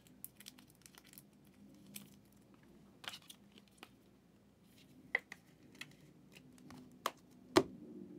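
Trading cards and plastic card holders being handled: faint rustling with scattered light clicks, a sharper click a little after seven seconds and the loudest just after that.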